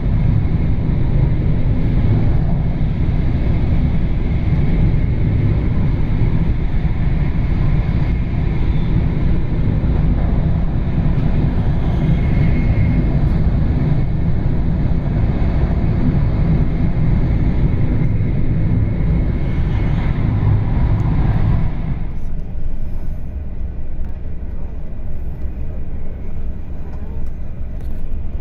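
Interior running noise of an E4 series MAX bilevel Shinkansen heard from a lower-deck seat: a loud, steady rumble of wheels on rail and air rushing past. It drops suddenly about three-quarters of the way through and continues as quieter rolling noise.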